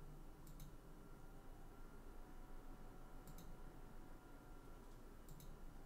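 Three faint computer mouse clicks a few seconds apart, each a quick press-and-release pair, over low room hiss.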